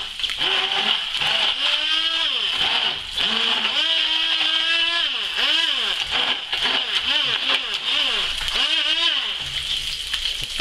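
Stick blender puréeing cooked parsnips and onions in a saucepan, its motor whine repeatedly rising and falling in pitch as it works through the thick purée, and stopping about a second before the end. Under it, a steady sizzle of fish fillets frying in a pan.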